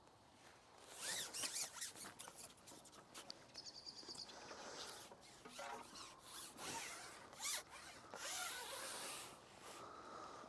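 Fishing pole being handled as groundbait is cupped in: irregular quick clicks and rasping scrapes of the pole rubbing through the hands and against the kit, with a longer scrape near the end.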